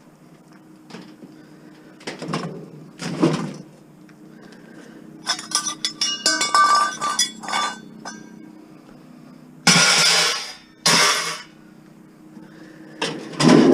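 Scrap metal being worked loose by hand: a few knocks, then a rapid run of ringing metallic clinks and rattles, followed by two louder harsh scraping noises and a last knock.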